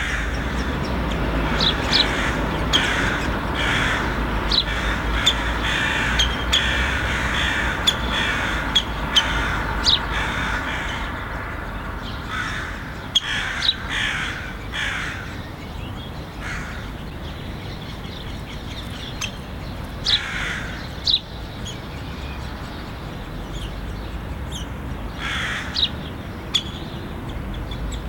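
Syrian woodpeckers calling: harsh, noisy calls repeated about once a second with sharp high notes among them, thinning out about halfway through, over a steady low traffic rumble.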